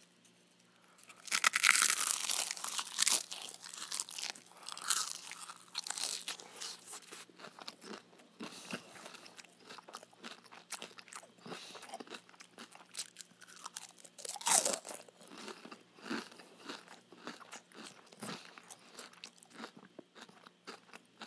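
Close-up crunching and chewing of crispy fried chicken. Loud crunching bites come a second or so in, then lighter chewing crunches follow, with one more loud crunch about two-thirds of the way through.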